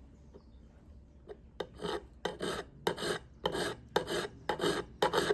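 Hand file rasping in even back-and-forth strokes, about two a second, across the steel jaw tip of cuticle nippers, filing down the dented, bent tip. The strokes start about a second and a half in.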